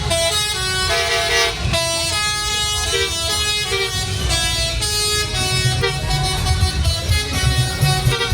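Bus telolet horn, a multi-tone musical air horn, playing a quick tune of shifting notes over a low rumble that grows louder in the second half.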